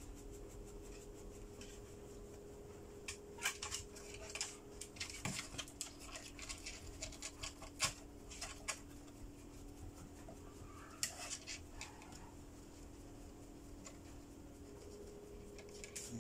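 Faint scattered clicks and rubbing from hands tending a dog's skin wounds with a cotton swab, heard mostly in the middle, over a steady low hum.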